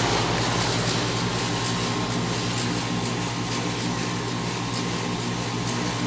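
2000 Heil Max Performance 10 3.5-ton heat pump outdoor unit running in cooling mode: the steady low hum of its Copeland scroll compressor under the even rush of air from the condenser fan.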